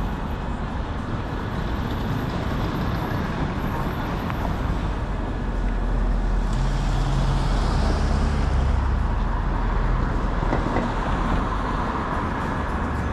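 City street traffic: steady road noise, with a heavier vehicle's engine passing and growing louder in the middle before fading.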